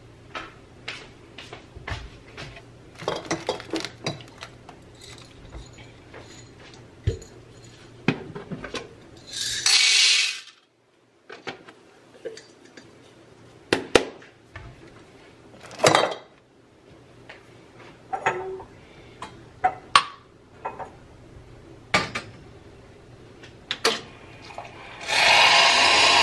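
Glassware and a glass jar being handled on a counter: a string of separate clinks and knocks, with a short hiss about ten seconds in. About a second before the end, the espresso machine starts running with a loud steady hum.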